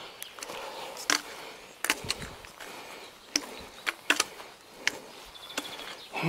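Footsteps on a path at a steady walking pace: a string of sharp taps, roughly one every three-quarters of a second.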